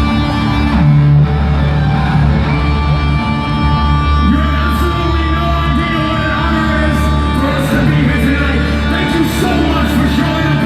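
Rock band playing live at concert volume: electric guitars, bass and drums, with some singing.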